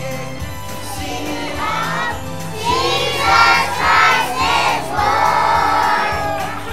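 A choir of preschool children singing together over music accompaniment, the voices growing louder from about two and a half seconds in.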